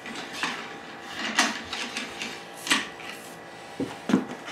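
Cleaning rod with a nylon .30-calibre bore brush being run through a .303 Lee-Enfield rifle's barrel, several short scraping strokes about a second apart. The brush fits snugly, with good resistance all the way through the bore.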